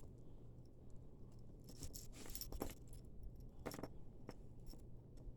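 Costume jewelry clinking and jingling as pieces are handled and sorted by hand: a run of light clinks about two seconds in, then a few single clicks.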